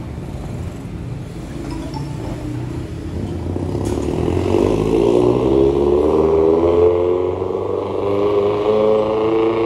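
A motor vehicle's engine accelerating through the crossing, rising in pitch and growing louder from about four seconds in.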